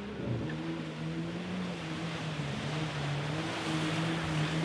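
Jeep Wrangler engine running steadily as it drives through a shallow creek ford, its tyres splashing through the water; the splashing grows louder in the second half as the Jeep comes close.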